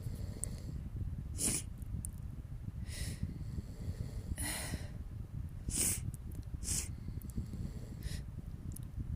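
A person sniffing hard through a runny nose during a sneeze buildup: six short, sharp sniffs, roughly a second or so apart.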